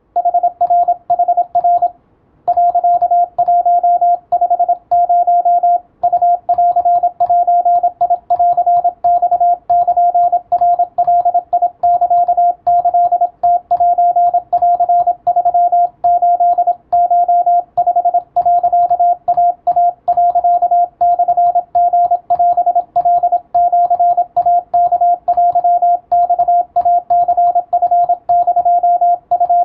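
Morse code (CW) in Japanese wabun code: a single steady mid-pitched beep keyed on and off in a continuous pattern of short and long tones, with one short break about two seconds in.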